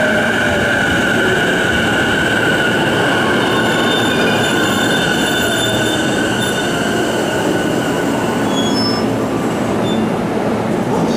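Electric commuter train running through the platform: a loud, steady rumble of wheels on rail with several long, steady high squealing tones above it.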